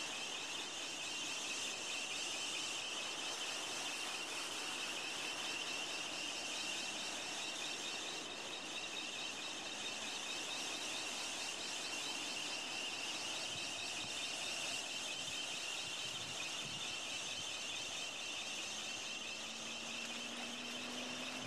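Steady wash of surf breaking and running up a sandy beach, heard as an even noise with a constant high hiss over it. A faint low hum comes in near the end.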